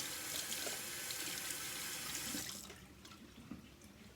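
Kitchen tap running as a small plastic cup is rinsed under it; the water shuts off about two and a half seconds in, leaving a few light clicks.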